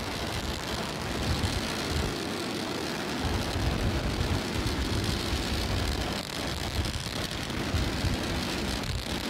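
Starship SN8's three Raptor rocket engines firing during ascent: a steady rocket-exhaust noise with a deep rumble that dips briefly about two seconds in.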